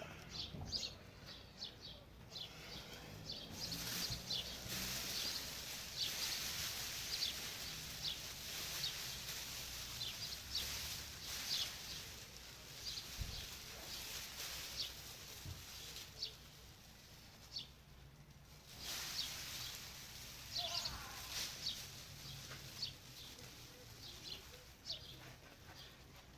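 Small birds chirping again and again over a steady high rustling hiss that drops away briefly past the middle.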